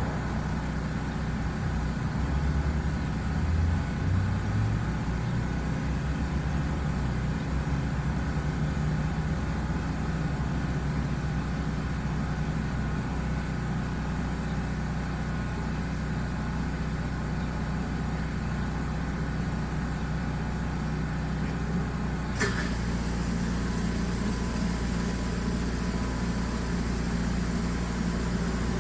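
Pressure washer engine running steadily: a continuous machine drone with a noisy hiss over it. There is a single sharp click about 22 seconds in.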